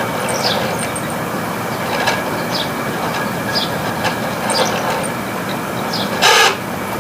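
Room air conditioner running in distress: a steady rumble with a faint steady tone, and short high chirps or clicks every half second or so as the fan blades slosh through water, the owner taking the unit's compressor to be in overload. A brief louder burst about six seconds in.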